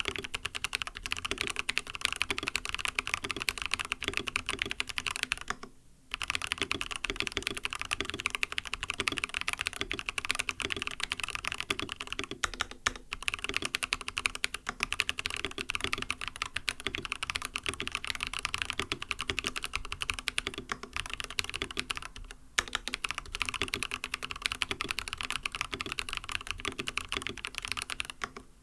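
Continuous typing on an mStone Groove T mechanical keyboard fitted with lubed MMD Coral non-click switches and silicone plate foam: a steady run of keystrokes, with short pauses about six seconds in, around thirteen seconds and around twenty-two seconds.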